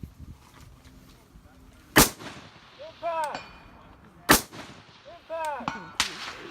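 Rifle shots at a precision rifle steel match: three sharp shots about two seconds apart, the last right at the end, each followed about a second later by a fainter ringing sound.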